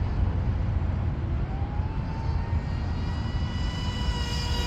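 Brushless electric motor (3674 size, 2200 kV, on 4S) of a racing RC mono hull boat whining at high speed, its pitch gliding upward about a second and a half in. A steady low rumble lies under it.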